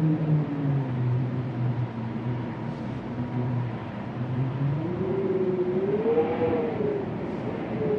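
Winter wind moaning, a hollow rushing with low, wavering howling tones that slide up and down in pitch and climb higher about five seconds in.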